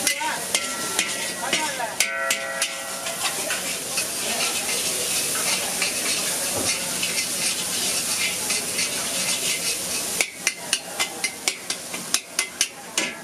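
Noodles sizzling in a hot wok while a metal spatula stirs and scrapes them around the pan. Near the end the spatula strikes the wok in a quick run of sharp knocks, about three a second.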